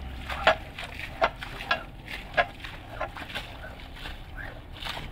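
Floor squeegees shoving water across a soaked wool rug on concrete: a run of wet slaps and splashes, the sharpest three in the first two and a half seconds, then softer ones.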